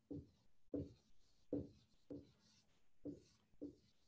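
Black dry-erase marker squeaking on a whiteboard as a word is written: a faint run of short strokes, about two a second.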